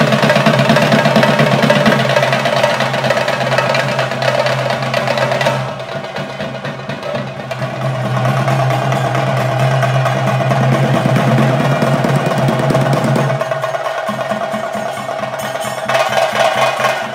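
Chenda drums beaten in fast, dense rolls, the drumming that accompanies a Theyyam, over a steady low tone. The drumming eases a little about five seconds in and builds up again about three seconds later.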